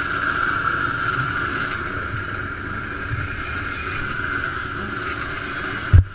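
Several motocross bike engines running steadily in a group. A single sharp thump comes right at the end.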